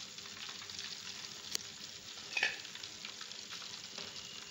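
Coated chicken drumsticks deep-frying in hot oil on their second fry: a steady bubbling sizzle, with a sharp tick about a second and a half in and a louder crackle around halfway.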